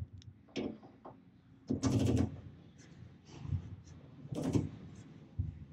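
Handling clunks and scrapes from a hand nut driver and the oil pan as the dipstick adapter's bolts are tightened: about five separate knocks, the loudest about two and about four and a half seconds in.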